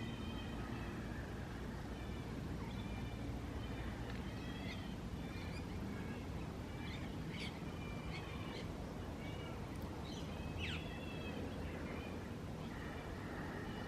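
Garden birds chirping and calling: scattered short, high chirps throughout, with one sharp falling call about ten and a half seconds in, over a steady low background rumble.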